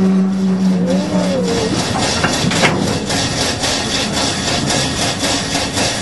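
Two-foot narrow-gauge locomotive standing at the platform, running with a steady noisy hiss. A low steady hum, with a brief rising-and-falling tone over it, stops about a second and a half in.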